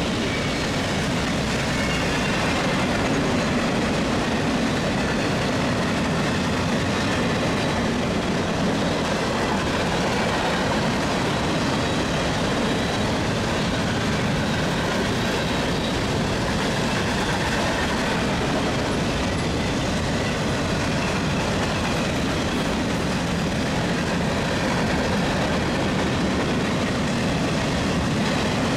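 Freight train cars rolling steadily past: a continuous run of steel wheels on the rails.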